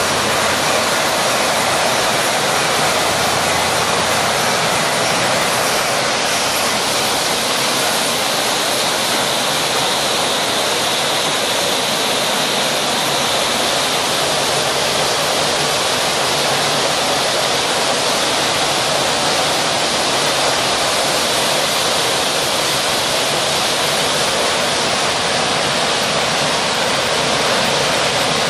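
Hardox steel ball mill running, a steady, loud rushing noise with no clear rhythm.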